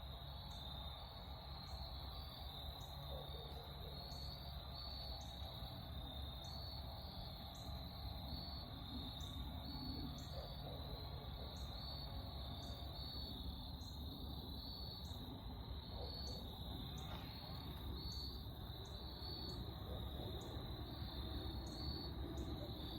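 Crickets chirping steadily, a high, regularly pulsing trill, over a low background rumble.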